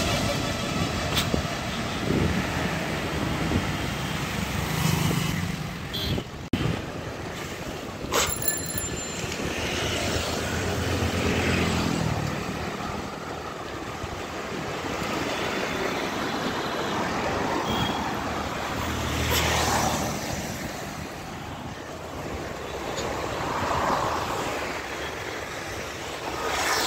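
Road traffic passing close by: a city bus and motorbikes going past, their engines rumbling up and fading several times over a steady noise of tyres and traffic.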